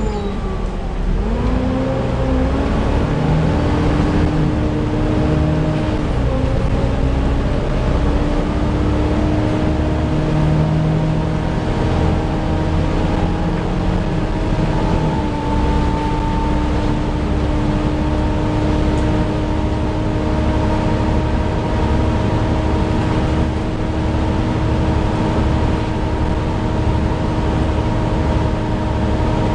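Radiator cooling fan of a Volvo B7TL double-decker bus whining, the sound enthusiasts call the 'hoover', heard inside the bus over a low engine and road rumble. The whine dips in pitch about a second in, then holds a steady tone with small shifts in pitch.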